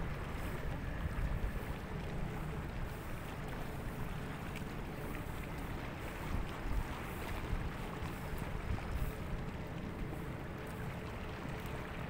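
Seaside ambience dominated by wind rumbling on the microphone, with a steady low rumble and several stronger gusts.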